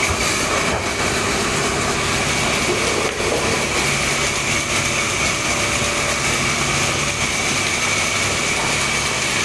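Sawmill machinery running steadily, a continuous electric motor and belt-drive hum with a steady high whine.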